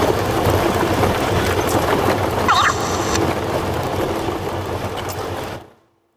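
Off-road 4x4 driving over a rough gravel track, heard from inside the cab: a steady low rumble of engine, tyres and suspension on stones. It fades out to silence about five and a half seconds in.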